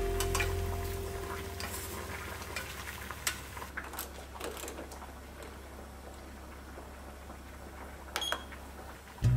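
A MUJI rotary digital kitchen timer being set: a few soft clicks as its dial is turned, then a short high beep near the end as its start button is pressed. Background music fades out in the first second or so.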